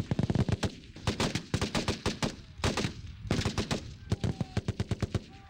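Rapid small-arms gunfire from several rifles firing at once, sharp overlapping shots several times a second with brief gaps between strings.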